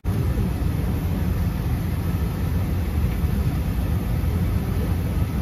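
Airliner cabin noise: a steady low rumble of the aircraft's engines and air systems heard through the fuselage.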